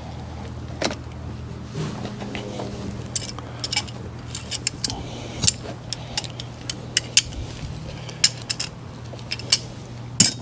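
Small metal tools and fittings clinking and jangling as they are handled, in a string of short sharp clinks over a steady low mechanical hum.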